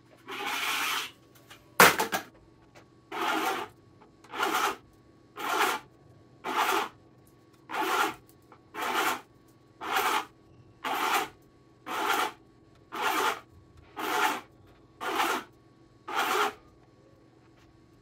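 Badminton string being pulled hand over hand through the racket frame's holes: a longer rub at the start, a sharp click about two seconds in, then thirteen short rubs of string through the frame, about one a second.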